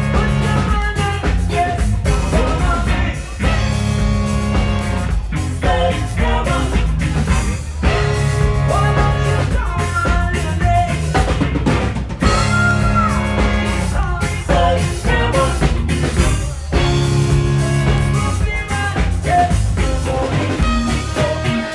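Live band playing a rock song, with drum kit and a singing voice.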